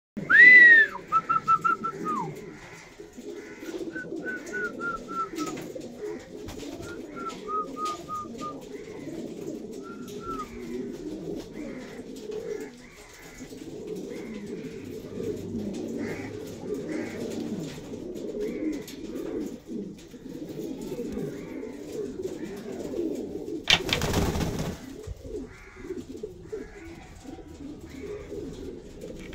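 Lakha fancy pigeons cooing continuously, a low throaty rolling coo from several birds at once. A few high, clear whistled notes sound in the first ten seconds, and there is a brief loud burst of noise about 24 seconds in.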